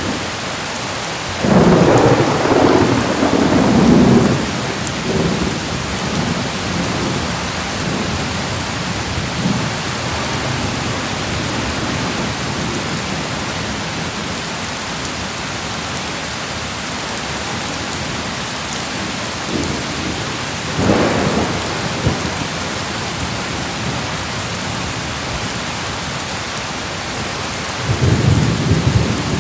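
Steady heavy rain falling, with thunder rumbling over it: a long roll about two to four seconds in, a shorter one around twenty-one seconds, and another beginning near the end.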